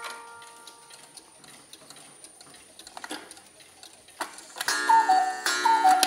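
Mechanical Black Forest cuckoo clocks ticking, then near the end a cuckoo call sounds twice: each a two-note falling 'cu-ckoo' from the bellows pipes, opened by a ringing strike of the clock's gong.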